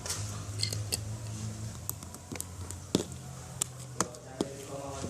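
Freshly made homemade slime handled by hand, giving scattered small sticky clicks and pops, about eight over a few seconds.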